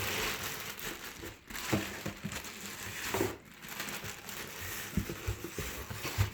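Wheel packaging crinkling and rustling as it is handled and pulled away from a new rim, with a few soft knocks.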